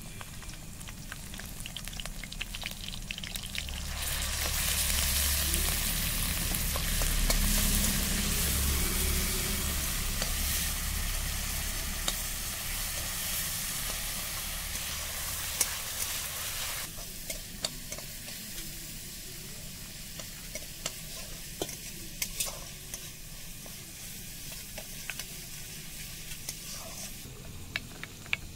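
Onions and cumin frying in hot mustard oil in an iron kadhai. About four seconds in, the sizzle grows much louder with a cloud of steam, and it eases back about thirteen seconds later. Spoon clinks on metal are scattered through, with more near the end.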